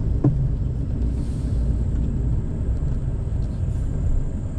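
Small vehicle driving slowly on a paved road, heard from inside the cabin: a steady low rumble of engine and tyres, with one light knock just after the start.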